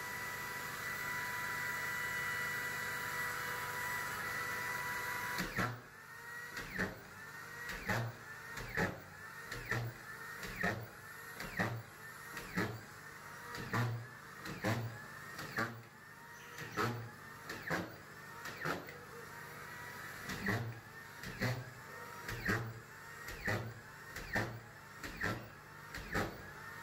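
Corded stand-up screw gun driving screws down through a wooden subfloor into the joists. Its motor runs steadily for about five seconds, then speeds up and slows with a sharp stroke about once a second, as each screw is driven home.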